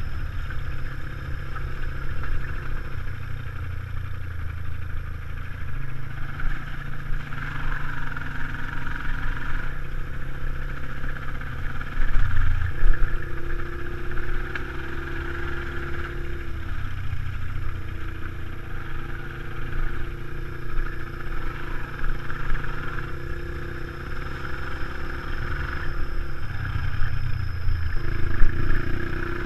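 Off-road motorcycle engines running along a dirt trail, the pitch rising and falling with the throttle, under a rough rumble from wind and bumps on the mounted camera. There are louder jolts about twelve seconds in and again near the end.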